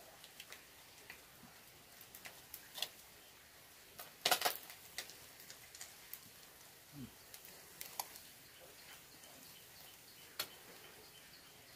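Sparse light clicks and taps, with one louder clatter about four seconds in, from a metal spatula working in a small aluminium wok of hot oil as fried fish are lifted out.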